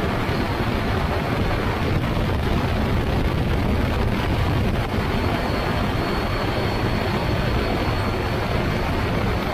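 Ultralight trike (motorized hang glider) in flight: its pusher engine and propeller run with a steady drone under heavy wind rush on the microphone. A faint high steady whine comes in about halfway through.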